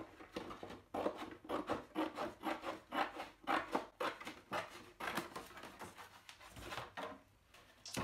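Scissors cutting through thin cereal-box cardboard: a run of short crunching snips, about three a second, that eases off near the end.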